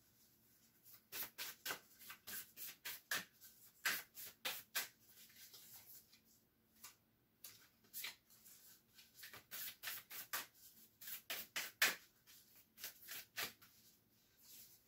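A deck of oracle cards being shuffled by hand: quick runs of soft card snaps and slides in two spells of about four to five seconds each, with a short pause between.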